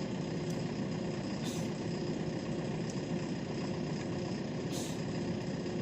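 JCB 3DX backhoe loader's diesel engine running steadily at idle, with two short hisses, about a second and a half in and near the end.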